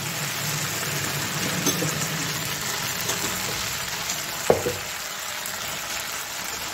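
Elephant apple (outenga) slices sizzling as they fry in hot oil in a kadai, stirred with a metal spatula. A single sharp knock about four and a half seconds in.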